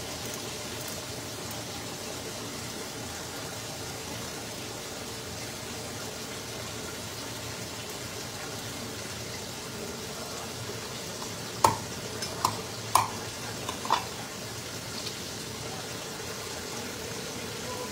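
Kitchen scissors cutting fish: a handful of sharp snipping clicks about two-thirds of the way through, over a steady hiss.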